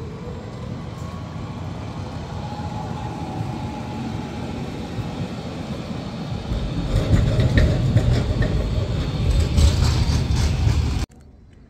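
Articulated city tram approaching and passing close by: steel wheels rumbling on the street rails, growing louder as it goes past, with a faint rising whine early on and a few light clicks. The sound cuts off suddenly about a second before the end.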